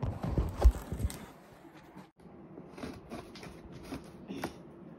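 Large cardboard box being handled, with a few heavy thumps in the first second. Later comes a run of light scratchy clicks as the packing tape along the lid's seam is slit open.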